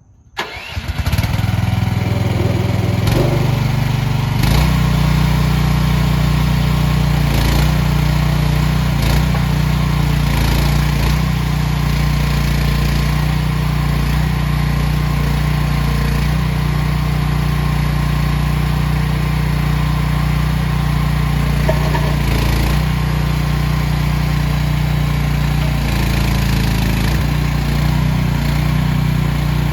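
AGT H15 mini excavator's engine starting and catching within about a second, stepping up a little in speed about three and four seconds in, then running steadily.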